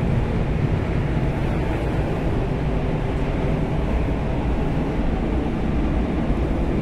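Paint spray booth ventilation running: a steady, even rumble and rush of moving air.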